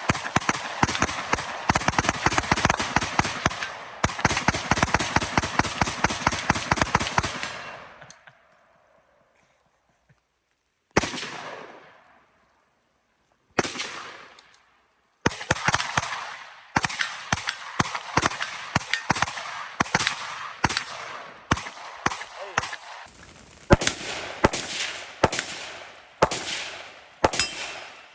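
Rapid gunfire. A dense string of fast shots for about seven seconds stops suddenly. After a pause come two single shots, then steady rapid fire of a few shots a second.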